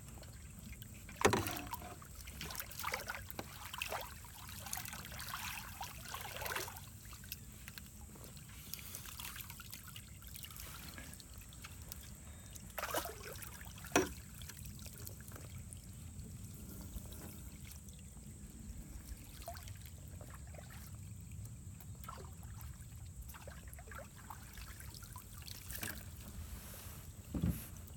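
Water trickling and splashing as a quahog rake is worked through the pond bottom and its load of wet muck is handled in the boat, with a few sharp knocks against the boat, the loudest about fourteen seconds in.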